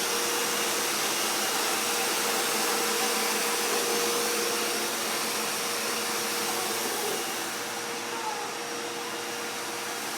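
Vacuum cleaner running steadily: a continuous rushing noise with a steady hum under it, getting slightly quieter in the last few seconds.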